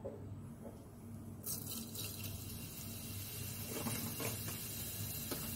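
Cumin seeds sizzling in hot oil in a metal pot: a hiss starts suddenly about a second and a half in as the seeds go in, and it carries on with a few sharp crackles.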